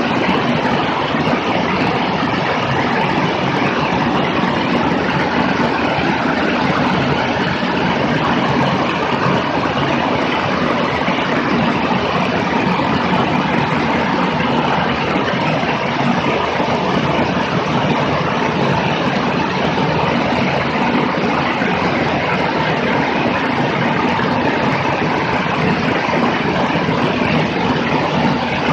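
Steady rush of wind over a camera mounted outside under the wing of a single-engine light airplane in level flight, with the engine and propeller drone underneath. It stays even, with no change in pitch or level.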